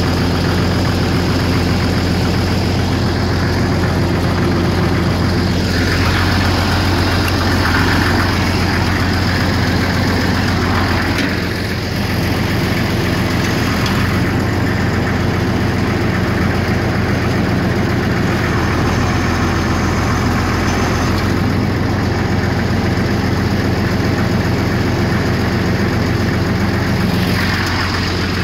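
Gehl swather's engine running steadily, heard from the operator's seat.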